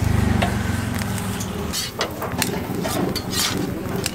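A motor vehicle engine rumbling, loudest and pulsing at the start and fading after about two seconds, with scattered sharp clicks and taps over it.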